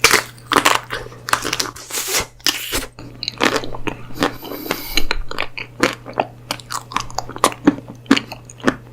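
Close-miked crunching and chewing of a chocolate dessert: many irregular, crisp bites and chews.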